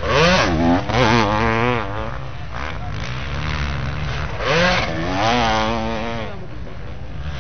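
Motocross motorcycle engines revving hard over the sand track, pitch rising and falling with the throttle. One bike passes in the first two seconds and another about four and a half seconds in, over a steady low engine rumble.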